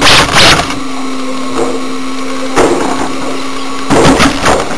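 A stationary radio-controlled car giving a steady hum, heard through its onboard microphone, with loud rushing noise at the start, a brief burst in the middle and more loud noise near the end.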